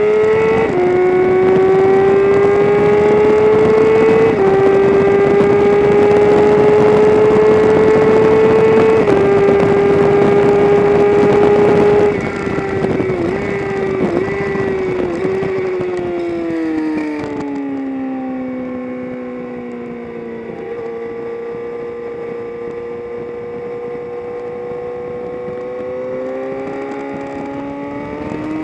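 Onboard recording of a track-day vehicle's engine at full throttle, with three upshifts, each dropping the pitch before it climbs again. About twelve seconds in it goes off the throttle, and three quick throttle blips mark downshifts. The engine note then falls steadily as it slows for a corner, holds at a steady part-throttle cruise, and begins to pick up again near the end.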